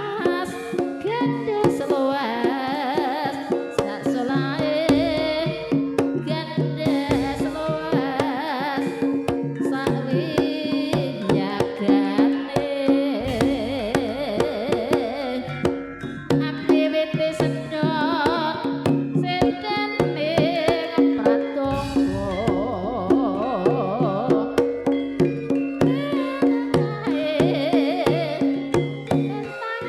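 Campursari music: a singer's wavering voice over steady accompaniment and quick, busy hand-drum strokes.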